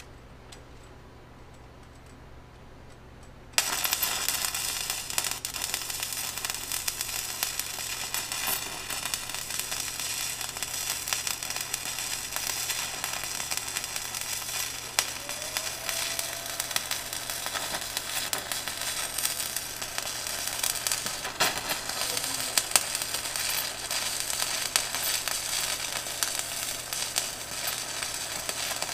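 Stick welding arc: a low steady hum, then the arc strikes about three and a half seconds in and keeps up a continuous crackling sizzle as a bead is laid with welding rod.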